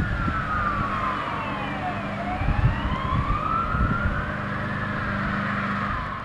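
Fire engine's siren in a slow wail, gliding down and up in pitch, over a low engine rumble; it begins to fade at the very end as the truck moves off.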